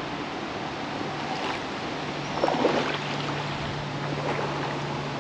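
Steady rush of flowing creek water, with one brief louder sound about halfway through.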